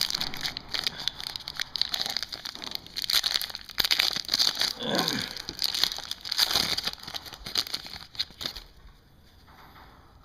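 Plastic wrapping on a pack of trading cards crinkling and tearing as it is opened by hand, a dense crackle that stops about eight and a half seconds in.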